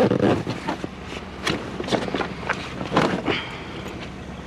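Footsteps and scattered knocks and clatters of things being handled, over the steady low hum of an idling vehicle engine.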